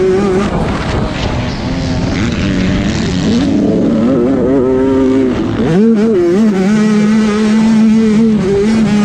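Motocross bike engine heard from on board at racing speed, revving up and down as the rider accelerates, with a dip and climb about six seconds in before it holds a steadier high note.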